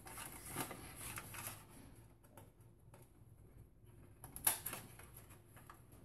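Power supply cables being handled and tucked into an open PC case: faint rustling and light clicks, with a louder rustle and click about four and a half seconds in.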